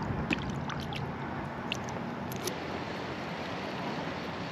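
A few small water drips and ticks around an inflatable kayak in the first two and a half seconds, over a steady low rumble of distant road traffic.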